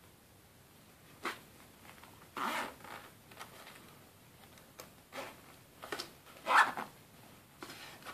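Zipper on a leather rifle bolt sheath pulled along in several short scraping strokes, with the longest stroke a little over two seconds in and the loudest about two thirds through.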